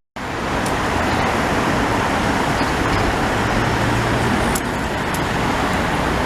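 Steady, even engine roar with no clear pitch, starting right after a brief cut-out in the sound.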